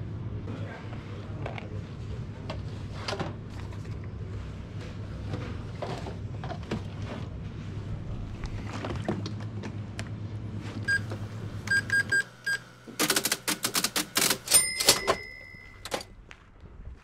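Plastic coolant jugs knocked and handled over a steady low hum, then a series of short electronic beeps, a rapid clattering run and one longer beep near the end: a card payment terminal and receipt printer at a shop checkout.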